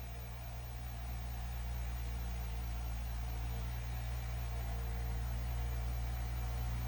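Mini excavator's engine running steadily with a low drone, growing slightly louder over the first couple of seconds.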